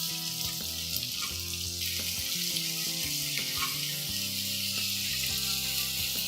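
Chopped onions and tomatoes frying in hot mustard oil in a pan, making a steady sizzle.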